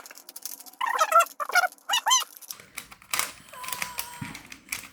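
Plastic 3x3 Rubik's Cube layers being turned fast, a rapid clatter of small clicks, with a few short high-pitched vocal squeaks about a second in.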